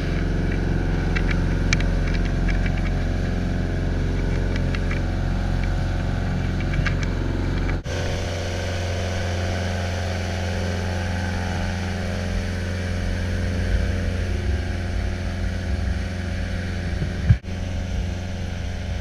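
Charter fishing boat's inboard engine running steadily, heard from on board, with two brief breaks about eight seconds in and near the end.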